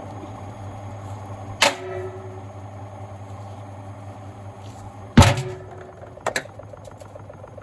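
Heavy bricks banging inside a running Gorenje SensoCare washing machine drum over a steady low motor hum. There is one bang about one and a half seconds in, a louder one about five seconds in, and then a quick double knock. Near the end a fast, even ticking sets in.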